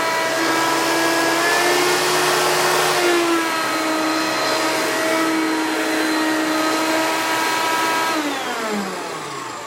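Hoover PowerMax upright vacuum cleaner running steadily while picking up test dirt. About eight seconds in it is switched off, and its motor whine falls in pitch and fades as it winds down.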